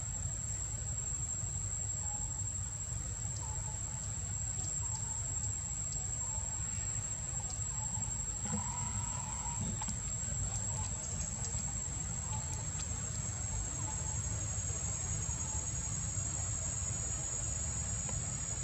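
Insects droning steadily at a high pitch over a low outdoor rumble, with faint short chirps now and then.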